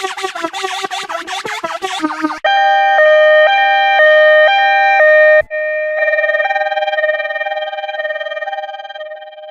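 Bus horn sound effects played in altered variations: first a rapid pulsing horn at about five blasts a second, then a loud two-note horn alternating between a higher and a lower pitch about twice a second. After a short break about five and a half seconds in, another two-note horn pattern starts and fades away toward the end.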